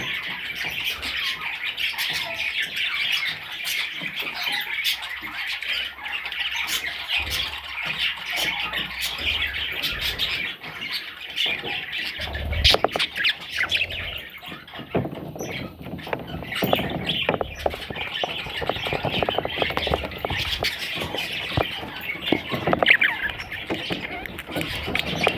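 Budgerigar chicks chirping and squawking without pause, a dense chorus of high calls, with a couple of low knocks about halfway through.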